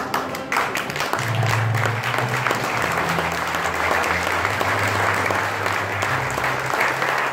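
A crowd clapping steadily, with the bass line of background music underneath.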